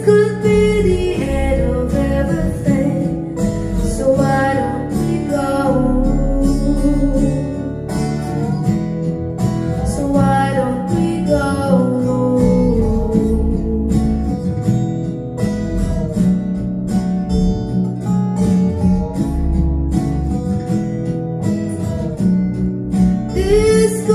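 A woman singing into a microphone over acoustic guitar accompaniment.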